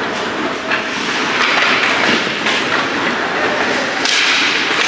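Ice hockey play on a rink: sharp cracks of sticks and puck striking, the loudest about four seconds in, over the steady noise of the rink.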